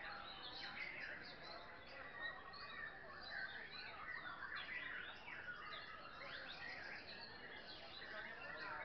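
Many white-rumped shamas (murai batu) singing at once, a dense overlapping chorus of whistles and chirps that runs without a break.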